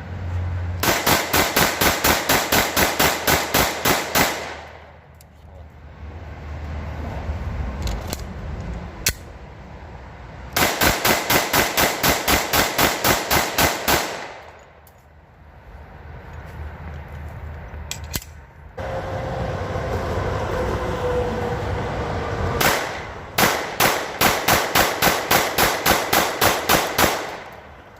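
Glock 19 9mm pistol emptied in rapid fire, a mag dump: three long strings of shots at about four a second, each lasting three to four seconds, with quieter gaps between them.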